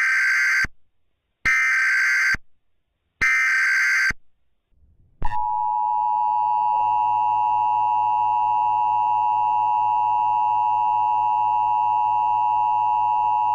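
Emergency Alert System header: three short bursts of buzzy digital data tones, each under a second, then after about a second's pause the steady EAS attention tone, which holds for about eight seconds and then cuts off.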